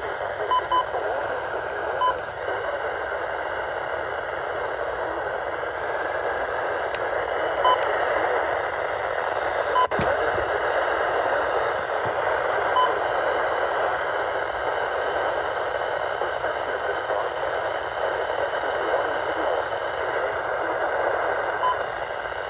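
Steady hiss of static from a weather radio receiver with no voice on the channel, broken by a few short faint beeps and a sharp click about ten seconds in.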